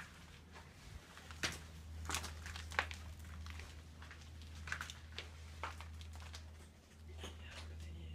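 Irregular crackles and light knocks of people moving on a debris-strewn floor, over a steady low rumble.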